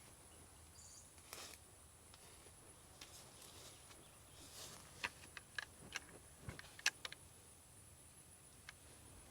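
Faint, steady high-pitched drone of insects with a slight pulse to it. About five to seven seconds in, a quick run of small sharp clicks and knocks.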